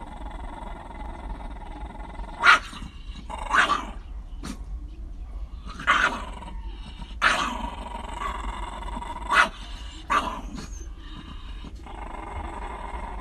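Shiba Inus growling at each other, with about six short, loud snarls, over a steady low hum.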